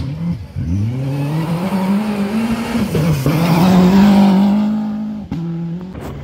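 Rally car engine accelerating hard as the car passes close by: the pitch climbs, drops once at an upshift about three seconds in, then climbs again to its loudest and fades as the car goes away. Near the end the sound cuts abruptly to another engine running more steadily.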